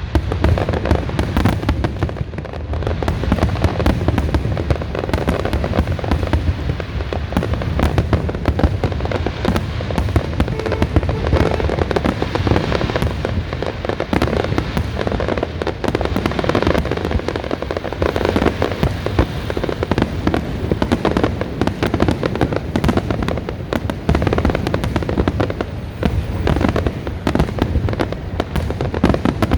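Large aerial fireworks display going off without pause: a dense, continuous barrage of bangs and crackling over a low rumble.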